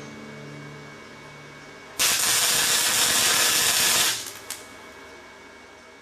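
Electric arc welding on steel: about two seconds in the arc strikes and gives a loud, even crackling hiss for about two seconds, then cuts off abruptly as the bead ends.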